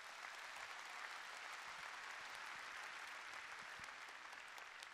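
A large audience applauding. The clapping swells in the first second, holds, then slowly dies down.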